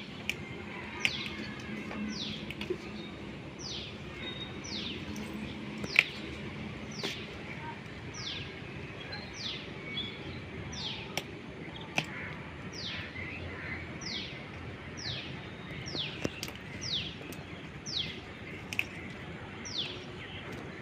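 A bird repeating a short, high, downward-sliding call about once a second, with scattered sharp clicks over a low outdoor background noise.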